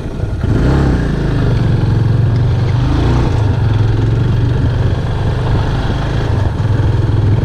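Motorcycle engine running at a steady, low speed, coming in about half a second in and holding an even pulsing note.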